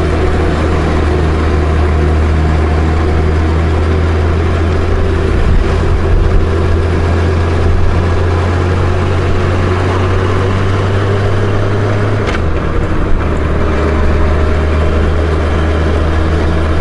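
Honda Gold Wing GL1500's flat-six engine running steadily under way, with a steady rush of wind and road noise. The low engine note drops about twelve seconds in.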